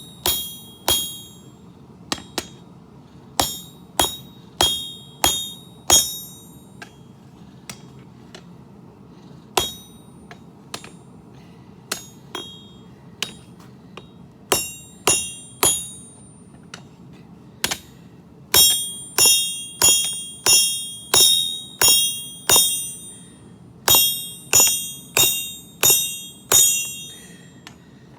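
Hand hammer striking hot steel on an anvil while forging, each blow ringing with a bright, bell-like ping. The blows are spaced out at first, then come in a steady run of about two a second from about two-thirds of the way in.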